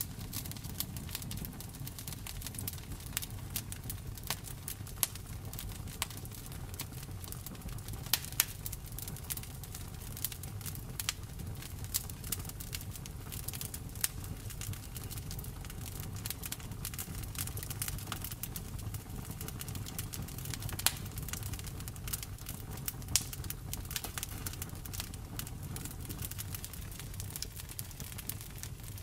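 Campfire crackling: a dense run of irregular small clicks and sharper pops over a low, steady rumble, with a handful of louder pops scattered through.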